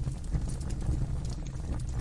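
Wood fire burning in a fireplace: a steady low rumble of the flames with a few sharp, irregular crackles and pops.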